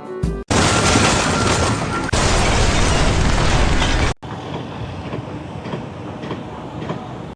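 Loud, steady, noisy mechanical rumble, cut off abruptly and resumed quieter partway through.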